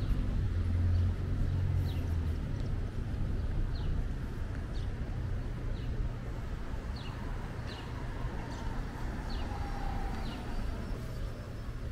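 Street ambience: a low traffic rumble, strongest in the first couple of seconds as a vehicle goes by, with a small bird chirping over it, short high falling chirps about once a second.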